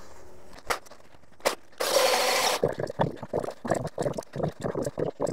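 Footsteps and rustling through grass as a man carries a cordless chainsaw that is not running, with two sharp clicks and a short burst of rushing noise about two seconds in.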